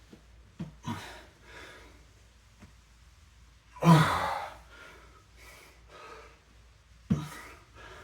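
A man breathing hard under exertion, with forceful breaths out. The loudest comes a little under four seconds in and another about seven seconds in, both with some voice in them, and softer breaths fall between.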